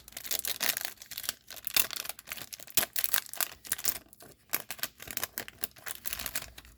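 Trading card pack wrapper being torn open and crinkled by hand: a dense, irregular crackle that thins out after about four seconds.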